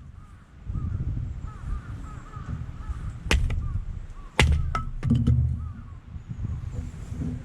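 A bird calling over and over in short, rising-and-falling calls, with several sharp knocks about three to five seconds in and a low rumble throughout.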